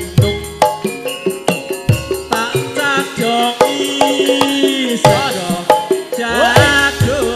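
Javanese gamelan playing wayang accompaniment: a steady run of struck, ringing bronze keys and drum beats with a jingling rattle on top. A wavering melody slides in pitch over them about halfway through and again near the end.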